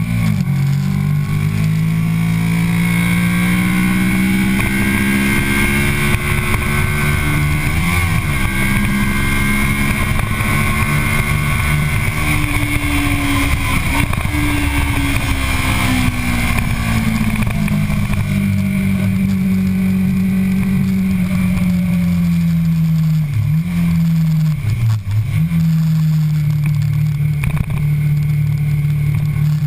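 2009 Kawasaki Ninja 650R's parallel-twin engine pulling hard at speed, heard from a tank-mounted camera over steady wind rush. The engine note climbs for about twelve seconds with a brief dip about eight seconds in. It then falls away, dips sharply twice and holds steady near the end.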